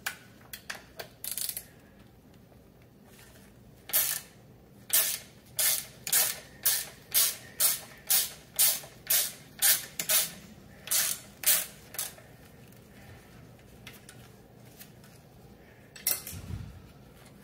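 Hex Allen wrenches loosening a 4 mm bolt on an electric scooter's rear suspension mount: a run of about sixteen short, evenly spaced metallic rasps, roughly two a second, with a few scattered clicks before them and a dull knock near the end.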